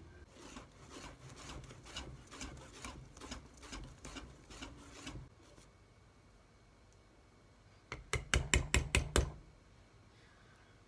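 Wire whisk stirring thick pancake batter in a stainless steel bowl, scraping at about three strokes a second, stopping about five seconds in. About eight seconds in comes a quick run of about seven sharp knocks, the loudest sound.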